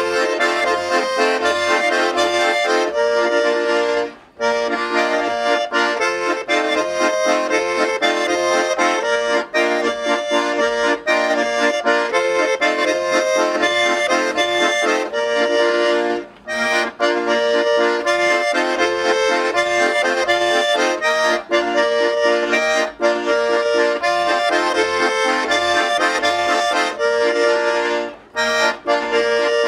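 Two Schwyzerörgeli, Swiss diatonic button accordions, playing a traditional folk tune together, with brief pauses between phrases about four seconds in, about sixteen seconds in and near the end.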